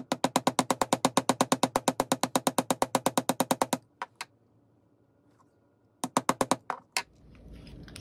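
Chasing hammer tapping the tip of a 16-gauge copper wire on a steel bench block, flattening it for a loop. A fast, even run of light metal-on-metal taps, about nine a second, lasts nearly four seconds. After a pause a second, shorter burst of taps comes about six seconds in.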